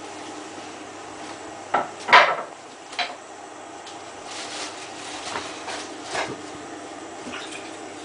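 A few sharp clinks and knocks of hard objects. The loudest comes about two seconds in and the softer ones are scattered over the following seconds, over a faint steady hum.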